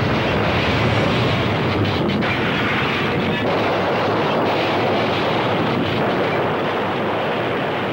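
Tornado wind: a loud, steady rushing noise with a few faint knocks mixed in.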